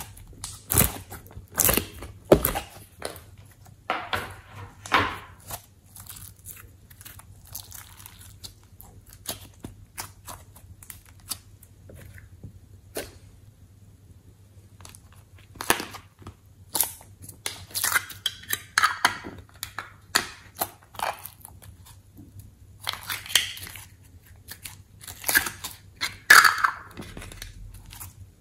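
Glossy slime being peeled off a plastic ice-cube tray and squeezed by hand, making irregular sticky crackles and sharp clicks that come in clusters, with a quieter stretch about halfway through.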